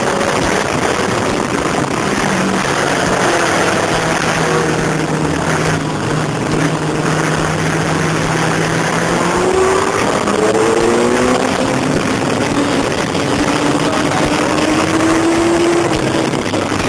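Sport motorcycle engine under way at speed, heard through heavy wind rush on the onboard microphone. The engine pitch holds steady for several seconds, then climbs, drops back about eleven seconds in as if shifting up, and climbs again.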